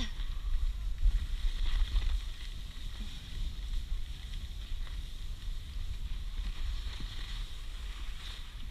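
Wind rumbling over the microphone of a skier's camera as they glide downhill, heaviest in the first couple of seconds, with the steady hiss of skis sliding and scraping over packed snow.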